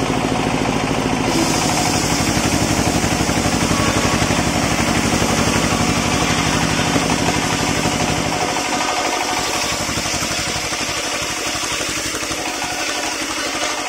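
Engine-driven circular sawmill blade ripping a teak beam: the engine runs with a rapid pulsing beat, and the hiss of the blade cutting wood starts about a second in. The engine's low drone thins out about two-thirds of the way through while the cutting hiss goes on.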